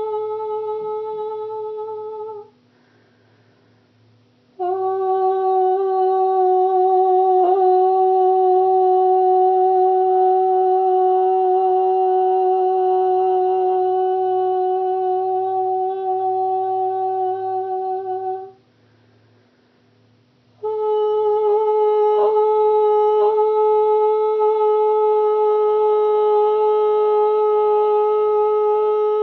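A voice singing long, steady held tones, wordless 'light singing': one note breaks off a few seconds in, then a lower note is held for about fourteen seconds, and after a short breath pause a higher note is held to the end.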